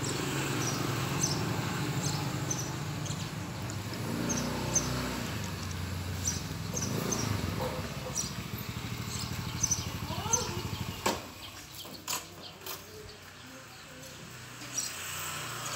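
An engine running steadily, fading out about eleven seconds in, with short high chirps repeating throughout.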